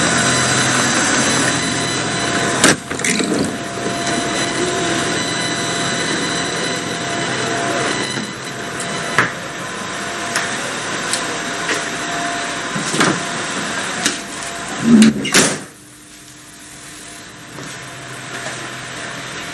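Diesel multiple unit idling at the platform, a steady engine hum heard beside the train and then from inside the carriage, with scattered knocks and clicks. Near the end comes a loud clatter, after which the sound drops suddenly to a much quieter hum.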